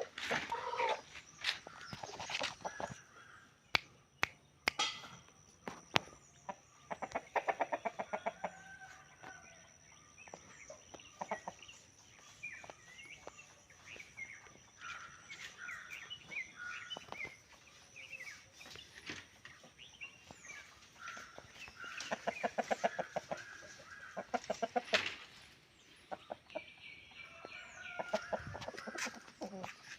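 Chickens and roosters clucking and calling, with many short calls and two longer runs of quick, pulsed clucks. Scattered sharp clicks are heard, and a thin steady high whine runs underneath.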